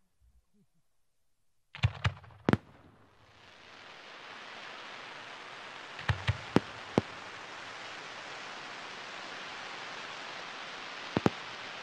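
Display fireworks going off: three sharp bangs about two seconds in, four more around six to seven seconds in and two near the end, over a steady hissing crackle that builds up from about three seconds in.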